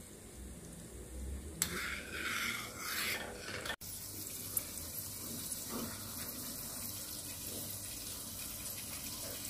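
A metal spoon stirring thick, bubbling gravy in a stainless pan, with a few louder scraping, sloshing bursts. It cuts off suddenly a little under four seconds in and is followed by a steady hiss.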